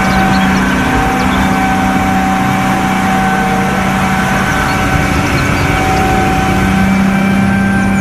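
Large mining dump truck's diesel engine running steadily as the truck drives, a constant drone with a steady hum.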